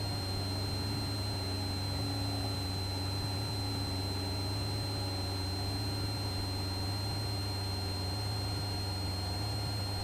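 Steady drone of a Cessna 172's engine and propeller heard inside the cabin, holding the climb before levelling off, with a thin steady high whine over it.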